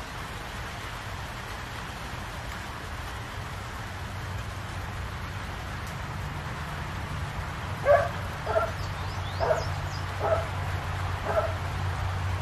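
Steady rain falling, with a low rumble building under it in the second half. About two-thirds of the way through, a dog barks five times, roughly once a second.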